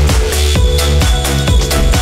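Electronic music with heavy bass and a fast steady beat.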